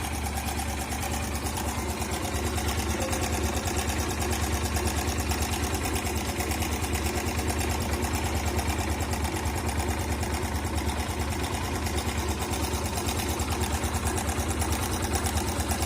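Motorcycle engine idling steadily with a fast, even beat and a lot of timing chain noise: the cam chain tensioner is not holding the chain's tension.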